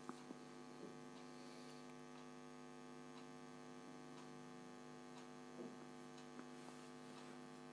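Near silence: a faint, steady electrical hum, with a few faint soft ticks.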